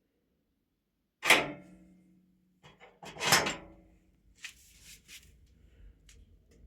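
Stove-fireplace door being handled: two loud metallic clanks about two seconds apart, each ringing briefly, followed by a few lighter clicks.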